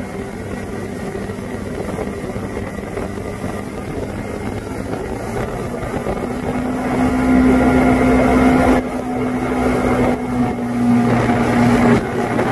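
Motorboat running at speed, its engine mixed with the rush of the wake and water. About halfway through it gets louder and a steady engine hum comes in.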